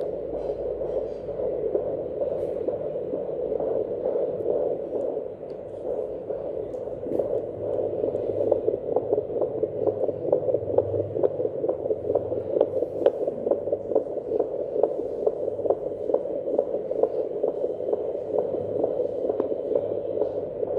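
Fetal Doppler monitor picking up an unborn baby's heartbeat: a fast, rhythmic whooshing pulse over a static hiss. It grows stronger and more regular about six seconds in.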